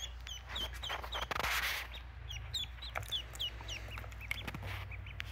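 Newly hatched ducklings, a day or two old, peeping: a steady string of short high chirps, two or three a second. A brief rustle comes about a second and a half in.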